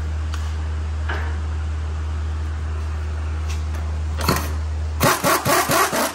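Impact wrench running a stabilizer link nut down in several short, rapid hammering bursts, starting about five seconds in. Before that there is a steady low hum, which drops away as the hammering starts.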